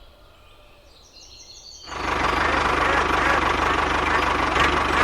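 Engine running with a fast, low, even chugging. It starts loud about two seconds in, after a quieter stretch with a few faint bird chirps.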